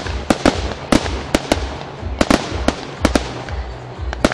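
Fireworks going off: a rapid, irregular series of sharp cracks and bangs from small bursting shells, about a dozen in four seconds.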